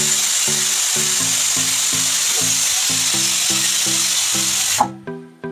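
Pressure cooker whistling: a steady, loud hiss of escaping steam that cuts off abruptly near the end. It is one of the four to five whistles counted to cook mutton under pressure. Background music with a steady beat plays under it.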